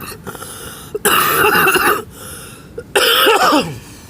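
A person coughing in two loud bouts, each just under a second long, the first about a second in and the second about three seconds in.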